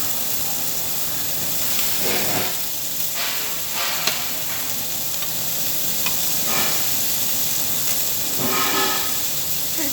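Meat sizzling steadily on a tabletop Korean barbecue grill, with a few faint background voices.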